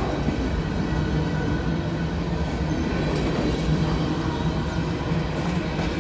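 Coal hopper cars of a freight train rolling past, a steady noise of steel wheels running on the rails.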